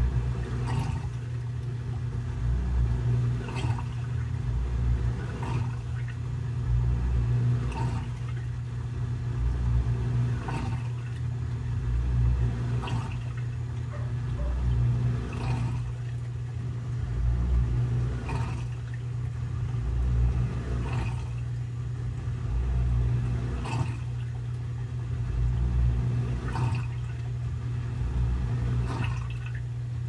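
Consul CWE13AB 13 kg top-load washing machine draining a full load: the drain pump hums steadily while water rushes and gurgles through it. The flow swells about every two and a half seconds.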